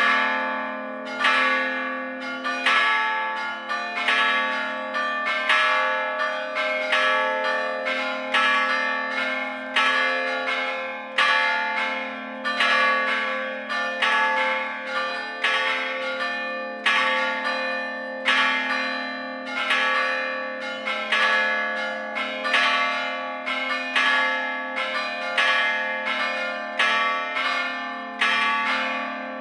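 Full peal of four church bells that are struck by hammers rather than swung. The strikes overlap in a steady, uneven run, a loud one about every second or so, each ringing and dying away over a steady low ring.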